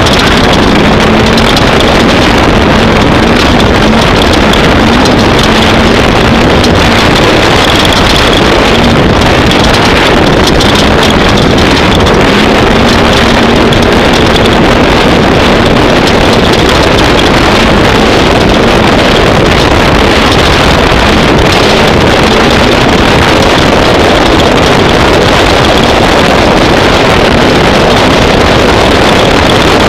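Off-road race vehicle running: a loud, steady engine drone whose pitch wanders slightly, buried in heavy wind noise on the microphone.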